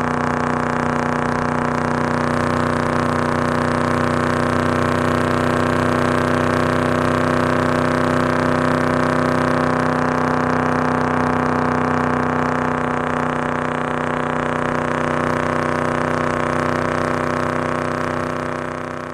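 Hot rod engine running at a steady, even pitch, likely idling, starting to fade out near the end.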